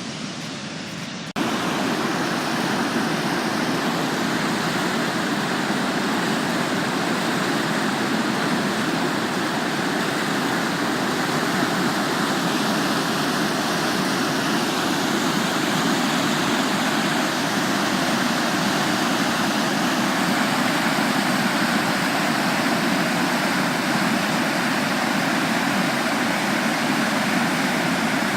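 Floodwater in a swollen river rushing past, a steady loud noise that steps up abruptly about a second in.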